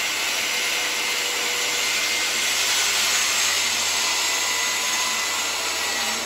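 Guild 1400 W 185 mm circular saw fitted with a ripping blade, running at full speed with a steady, unchanging whir, as if spinning freely or cutting into hardwood plywood.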